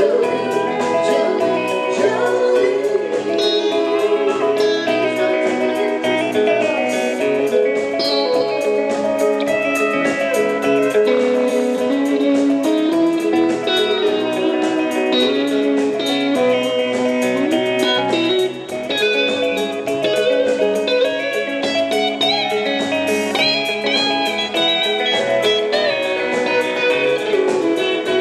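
Live band music led by guitars, acoustic and electric, with many quick plucked notes over a steady beat.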